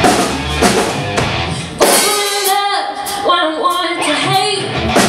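Live rock band playing, with drum kit, bass and guitar. About two seconds in a loud drum hit lands, then the low end drops away while a melodic line bends up and down in pitch, and the full band comes back in near the end.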